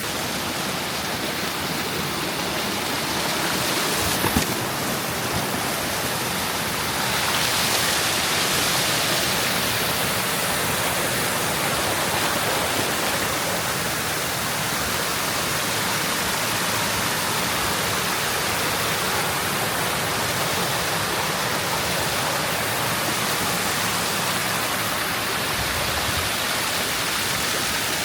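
A wet-weather waterfall in a creek, running at good flow with a steady rush of water that grows a little louder about seven seconds in. There is one brief knock about four seconds in.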